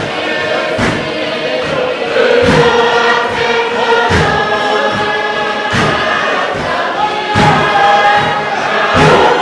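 Tuvaluan fatele: a large group singing together in full voice over a steady beat of hands striking a wooden box drum.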